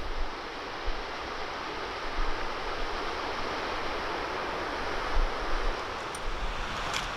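Steady rushing of a mountain stream, with a few low wind thumps on the microphone.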